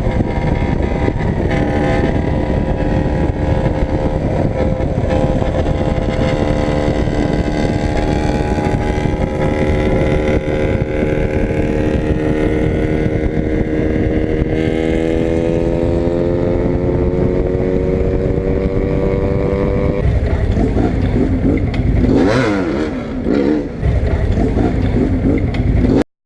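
Motorcycle engine running at road speed under a low wind rush, its pitch climbing steadily for several seconds as it accelerates, then easing off. A brief louder burst comes near the end, and the sound then cuts off abruptly.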